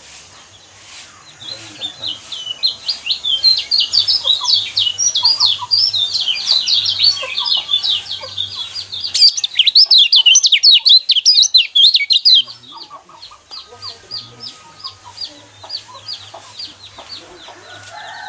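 White-eyes (pleci) singing a rapid, high-pitched twittering chatter, several birds overlapping. It builds to its densest and loudest stretch around the middle, then breaks off into a sparser run of chirps.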